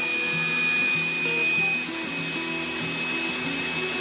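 Table saw running with a steady high whine as its blade cuts through a solid wooden box fed along the rip fence, over background music.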